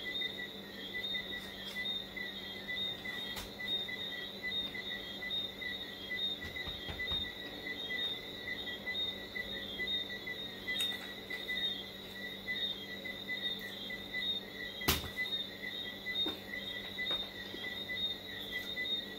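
Crickets chirping in a steady, continuous trill, over a low steady hum. One sharp click about three-quarters of the way through.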